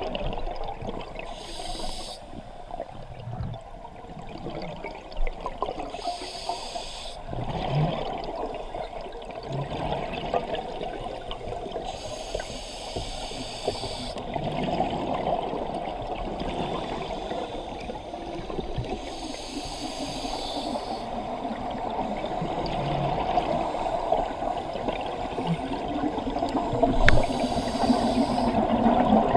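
A scuba diver breathing underwater through a regulator: five inhaled breaths, each a hiss lasting a second or two, with the burble of exhaled bubbles in between.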